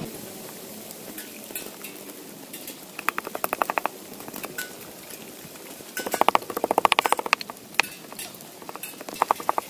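Pestle pounding in a mortar: single knocks, plus two quick runs of rapid knocks about 3 seconds and 6 seconds in, the second run the loudest.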